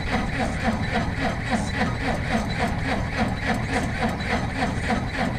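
A cold diesel engine on a logging machine turning over on the starter in a cold-start attempt on a jumped battery, with a steady rhythmic chug of about four to five beats a second, not catching.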